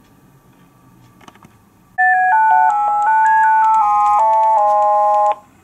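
T-Com Sinus 400 DECT cordless handset ringing for an incoming call: one burst of a melody ringtone, several notes at a time stepping up and down. It starts about two seconds in and cuts off after about three seconds.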